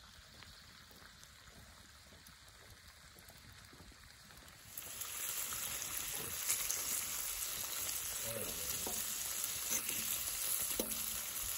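Bacon strips frying on a flat-top griddle with a steady sizzle, which comes in suddenly about five seconds in after a faint hiss. A fork clicks and scrapes a few times as it turns the strips. The bacon is being rendered down for its fat.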